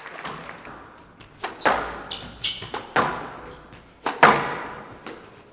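Squash rally: the ball is struck hard by rackets and cracks off the court walls in a run of sharp, echoing hits, the loudest about four seconds in, with a few brief shoe squeaks on the court floor.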